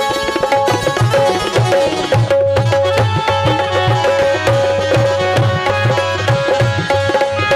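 Tabla playing a steady rhythm in the instrumental interlude of a devotional bhajan: repeated deep bass strokes under ringing higher strokes, with the accompanying music.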